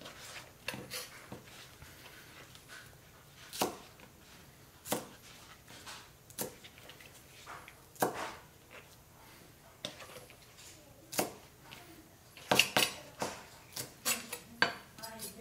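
Knife knocking on a plastic cutting board as green onions are handled and their root ends trimmed off: scattered single sharp knocks, then a quicker run of knocks near the end.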